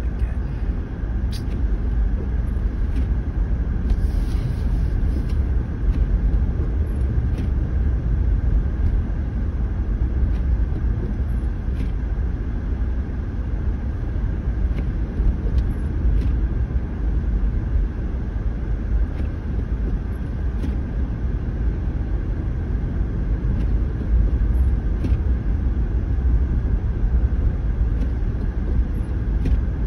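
Toyota Prius driving slowly over a snowy, slushy road, heard from inside the cabin: a steady low tyre and road rumble with a faint steady hum and a few faint ticks.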